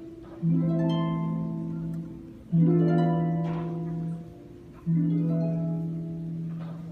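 Symphony orchestra playing a slow classical passage: three chords over a held low note, each starting suddenly and fading, about two seconds apart.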